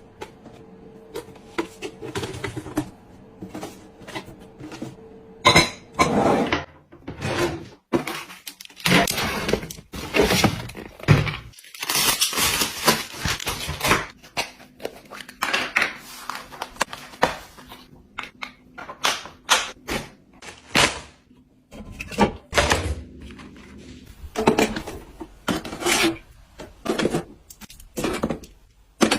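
Containers and packaged goods being handled and set down while restocking: an irregular run of clinks, taps, knocks and packaging rustles.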